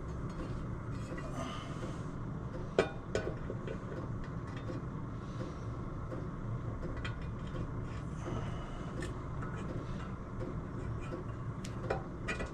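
Engine studs and metal parts being handled: a few light metallic clinks and knocks, the sharpest about three seconds in, over a steady low hum.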